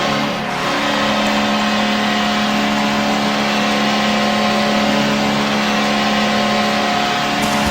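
An ice hockey arena goal horn blaring with one long, steady, low blast over a cheering crowd.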